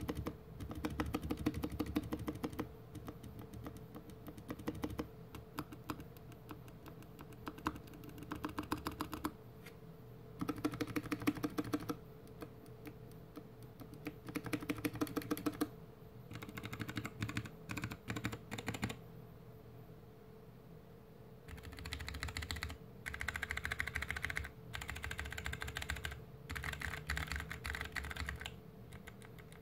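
Typing on a GK61X mechanical keyboard with Kailh BOX Mute Jade switches and DSA keycaps: bursts of rapid keystrokes on the modifier and letter keys, with short pauses between them. About twenty seconds in, the typing stops briefly, then resumes with the board on a desk mat.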